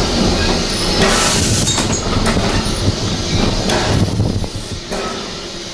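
Passenger carriage of a heritage steam train rolling slowly into a station, heard from inside: wheels rumbling and clicking on the rails, with odd knocks. The noise falls away about four and a half seconds in as the train draws to a halt.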